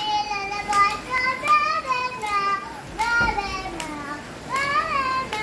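A young child singing a song in a high voice, with a few hand claps.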